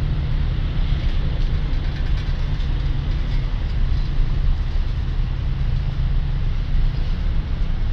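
Steady low rumble of city street traffic and road noise.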